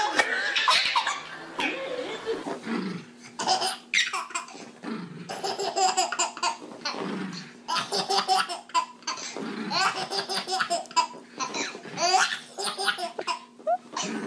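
A baby laughing hard in repeated bursts of belly laughs.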